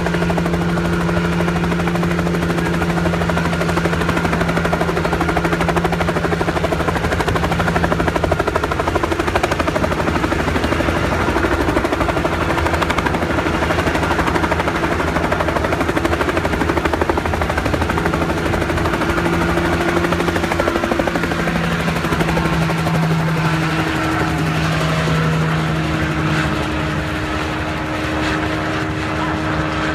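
Bell 47G-3B helicopter flying low past and overhead: the rapid chop of its two-blade main rotor over the steady drone of its piston engine.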